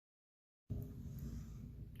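Dead silence, then a cut about two-thirds of a second in to faint background noise with a low rumble, the room tone of the next recording.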